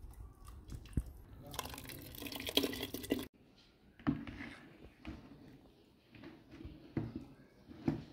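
Syrup from a bowl of diced peaches dripping and trickling into a pot, building for a second or two and then cutting off abruptly about three seconds in. After that comes a metal masher pressing soft peach chunks in a plastic bowl, making irregular squelchy knocks.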